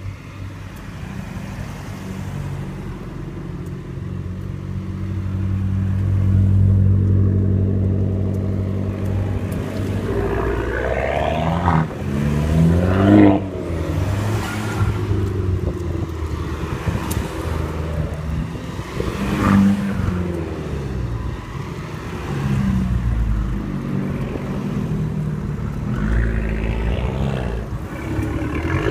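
Abarth hatchbacks with small turbocharged four-cylinder engines drive past one after another, each engine note rising and then falling as the car goes by: about twelve seconds in, again near twenty seconds, and once more near the end. Before the first pass, a steady engine hum runs close by, swelling for a few seconds.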